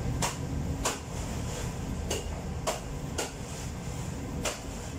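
About six sharp knocks, spaced about half a second to a second apart, as a worker strikes something with a tool, over the steady low hum of bakery machinery.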